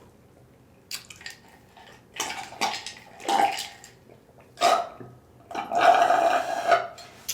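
A man's short breathy mouth sounds, then a long burp about six seconds in, at the end of eating a meal of fried chicken.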